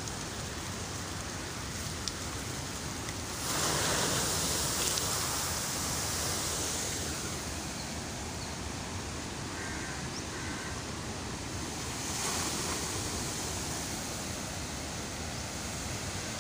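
Steady rushing noise of floodwater pouring from the dam and flowing past. The rush swells louder twice: for a few seconds about a third of the way in, and again briefly later.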